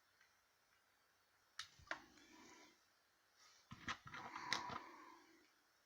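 Faint clicks and taps of Lego pieces being handled and pressed onto a model: two clicks about a second and a half in, then a short cluster of clicks with light rustling around four seconds in.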